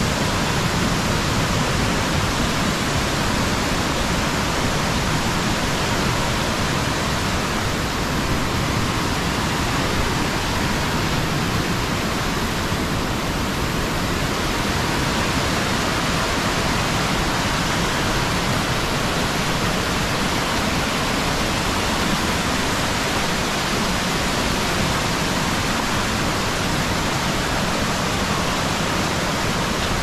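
Waterfall-fed mountain stream rushing and splashing down small cascades over boulders, a steady rush of water.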